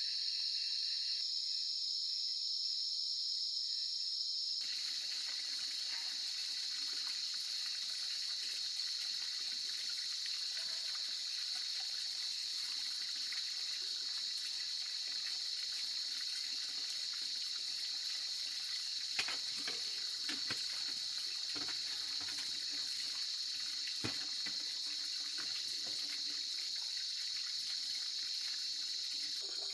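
Steady high-pitched chirring of night insects, joined after about five seconds by the hiss of a wood cooking fire with a few sharp pops.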